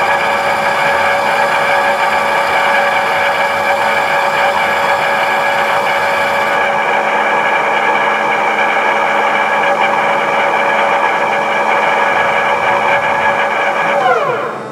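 Gear-driven spindle of a Romi CNC lathe running, a really noisy steady whine of many gear tones with no belts in the drive. Near the end the pitch falls away as the spindle winds down.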